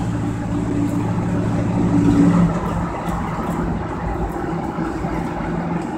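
1978 Chevrolet K-10 pickup's engine running steadily under road noise, heard from inside the cab. About two and a half seconds in, the engine note drops and quietens as the truck eases off for a roundabout.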